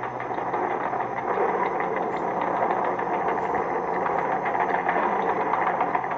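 Steady mechanical clattering and rumbling noise, machine-like, with a fine rapid ticking through it, as in an experimental sound-collage soundtrack.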